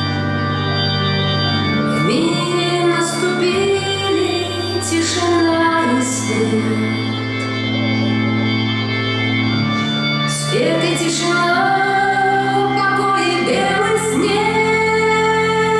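Music with a female singing voice over sustained chords and occasional cymbal strokes.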